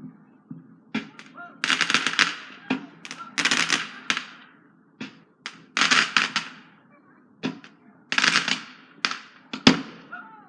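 Fireworks going off in quick succession: single sharp bangs mixed with volleys of rapid crackling bangs, about a dozen bursts, each trailing off briefly.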